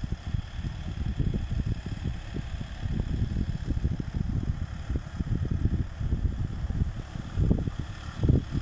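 Wind buffeting the microphone in uneven gusts, over the steady running of a small tractor's engine some way off as it pulls a furrowing implement.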